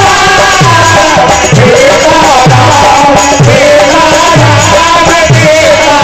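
Devotional kirtan: a man's voice sings a wavering melody over a dholak, whose deep bass strokes slide down in pitch about one or two times a second, with sharper hand slaps on the other head.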